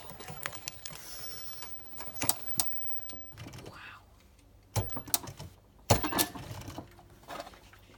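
Irregular clicks and knocks of things being handled or moved, with two louder knocks a little before the middle and about three quarters of the way through.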